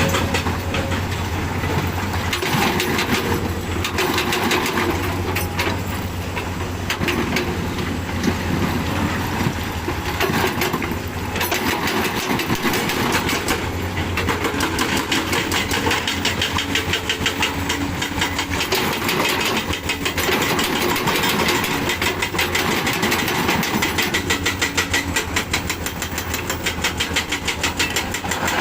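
Heavy diesel engine running steadily with a fast, even firing pulse; its level swells and eases at times.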